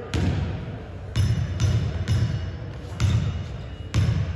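Basketball being dribbled on a hardwood gym floor: six bounces, each a thud with a short ringing ping, at uneven gaps of about half a second to a second.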